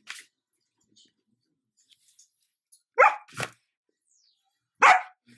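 Sheepadoodle puppy (Old English Sheepdog crossed with Standard Poodle) giving short barks for attention: two close together about three seconds in, and one more near the end.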